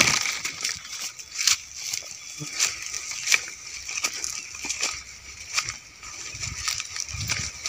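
Footsteps swishing and crunching through tall grass and weeds, irregular rustles about once a second.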